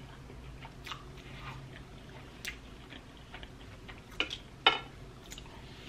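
Close-miked chewing of a mouthful of syrupy blueberry pancake, with soft wet mouth sounds and a few short sharp clicks, the loudest about four and a half seconds in.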